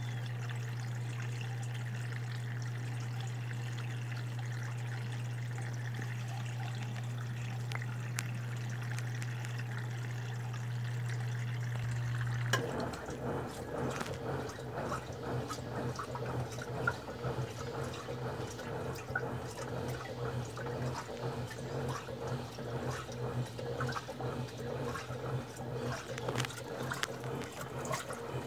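Electrolux Turbo Economia 8.5 kg washing machine filling with water over a steady hum; about twelve seconds in the fill cuts off and the turbo wash agitation starts, water churning and sloshing in the tub in irregular surges with the motor humming underneath.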